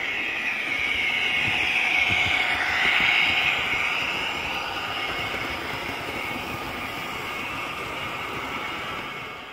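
Model train running past close by: the locomotive's electric motor whirring and the wheels running on the track. It swells to its loudest about three seconds in as the locomotive passes, then holds steady and fades away near the end.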